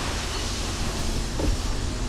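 Wind rushing over the microphone of a bicycle rider's camera: a steady hiss with a low, buffeting rumble.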